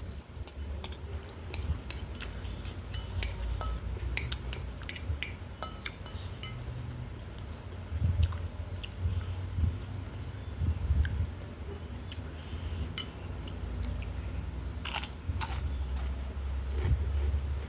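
Close-up eating sounds: chewing with many sharp little mouth clicks and crunches, and light clinks, over a steady low hum.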